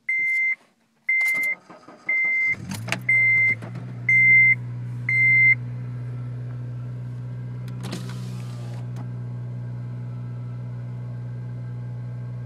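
A 2007 Honda Civic Si's four-cylinder engine cranks and starts from cold about two and a half seconds in, then idles steadily. A dashboard warning chime beeps six times, about once a second, over the first five seconds.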